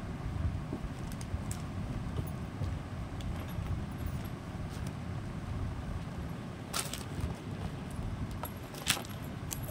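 A button-front shirt being handled and folded, with fabric rustling and rubbing close to the microphone. A couple of sharp clicks come in the second half.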